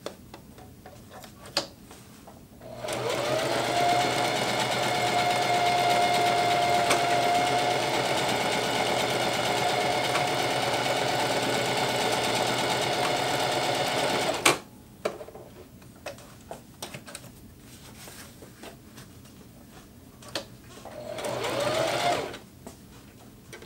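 Singer Heavy Duty HD6360M sewing machine sewing a straight stitch through heavy 1000 denier Cordura. Its motor spins up about three seconds in, runs at a steady speed with a whine for about eleven seconds, then stops sharply with a click. A few light clicks follow, and a second short burst of sewing comes near the end.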